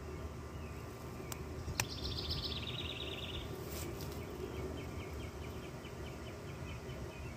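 A songbird singing a rapid trill about two seconds in that steps slightly down in pitch, then a fainter, slower trill through the second half, over a steady low outdoor background hum. Two sharp clicks come just before the first trill.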